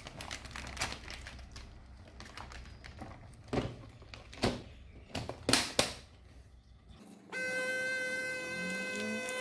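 Plastic bag being handled and sealed shut, faint crinkling with scattered sharp clicks. About seven seconds in, a steady held musical note with a horn-like tone cuts in suddenly.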